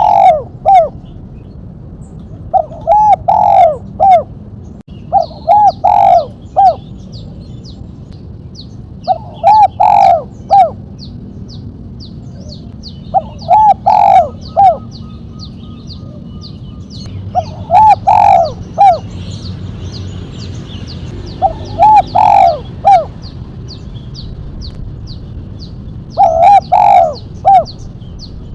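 Spotted dove (tekukur) singing its cooing song in the 'mercik' style with a sharp single end note: eight separate phrases, each of a few quick coos, repeated every three to four seconds.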